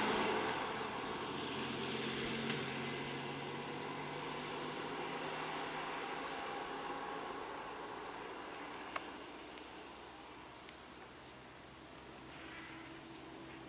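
Steady high-pitched insect drone, with short falling chirps in pairs every few seconds. A vehicle's low engine hum fades out over the first few seconds.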